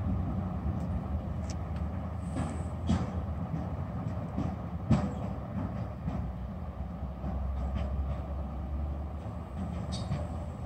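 SU160 diesel locomotive running as it pulls a passenger train away, its engine a steady low drone. The wheels knock sharply several times as they pass over rail joints and points.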